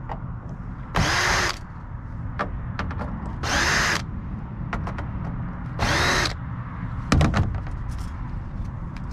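Power screwdriver running in three short bursts, its motor whirring up and down, as screws are backed out of a TV's housing, followed by a few sharp clicks.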